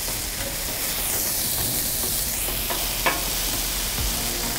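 Ground-beef patties sizzling steadily in their fat on a hot steel griddle top, a constant frying hiss.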